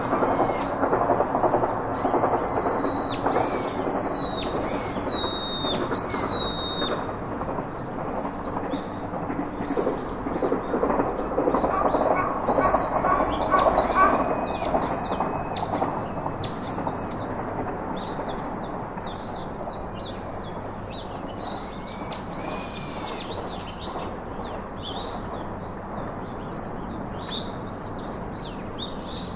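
Birds chirping, with many short quick falling calls, over a steady rushing background noise that grows softer through the second half.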